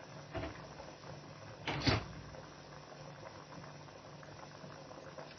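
Pot of beef tripe simmering uncovered on the stove with a faint steady bubbling and a low hum. There is a short knock about half a second in and a louder clatter about two seconds in.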